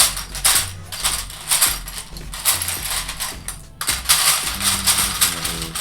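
Loose plastic Lego bricks clattering and rattling as hands sift through a pile of pieces, a dense run of small clicks throughout.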